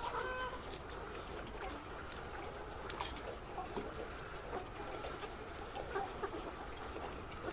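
A flock of laying hens clucking, with short calls scattered irregularly throughout.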